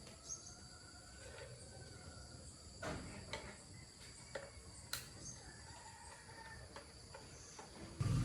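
Faint outdoor rural ambience: a steady high insect drone, a distant rooster crowing, and a few sharp clicks.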